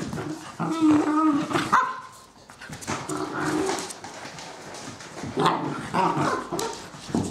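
Two four-month-old cocker spaniel puppies play-fighting, barking on and off, with a lull about two seconds in.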